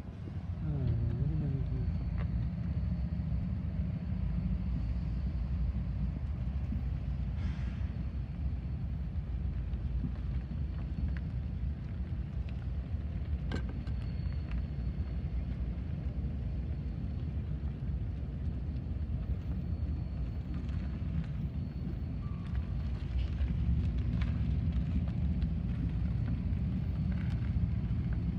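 Steady low engine rumble, growing a little louder about three-quarters of the way through.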